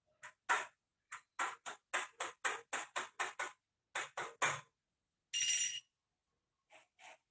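Series of small sharp plastic clicks, two to three a second, from the plastic switch housing of a Hitachi refrigerator ice maker being handled and refitted. A short scrape about five seconds in, then two faint clicks.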